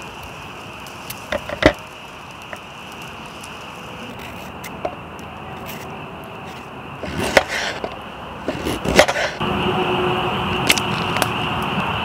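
Kitchen knife cutting daikon radish and peeling carrot on a cutting board, with a few sharp knocks of the blade near the start and more clattering in the middle. About nine seconds in, a louder steady sizzling hiss begins as radish slices go into a hot wok over a campfire. A steady frog chorus runs underneath.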